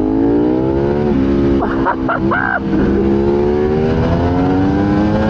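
Ducati Panigale V4 R WorldSBK superbike's 998 cc V4 engine heard onboard, pulling with its pitch rising. It drops sharply at an upshift about a second in, then climbs slowly again under steady acceleration.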